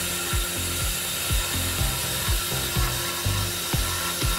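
Tormach PCNC 770 CNC mill boring a hole in 1-inch steel plate with an end mill: the spindle gives a steady high whine over the hiss of the cut, with uneven low thumps.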